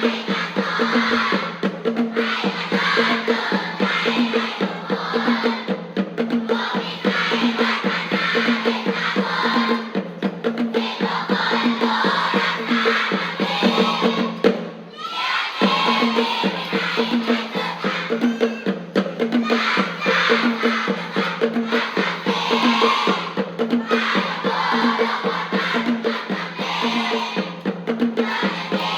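Upbeat music with a steady, driving percussion beat for a cheerleading routine. It drops out briefly about halfway through, then picks up again.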